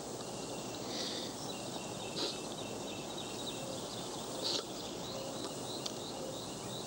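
Three short sniffs of snuff taken from a snuffbox, about a second, two seconds and four and a half seconds in, the last the sharpest, over a steady outdoor background with faint chirping.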